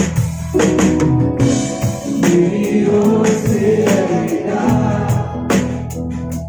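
Live Hindi Christian worship song: a group of voices singing with instrumental accompaniment over a steady percussive beat.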